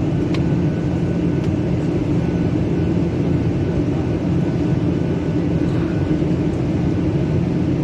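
Steady drone of an airliner's engines.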